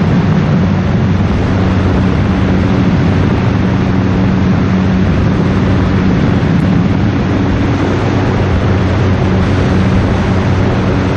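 Piston engine and propeller of a Conquest high-wing light aircraft running steadily at climb power, a constant drone under heavy wind rush.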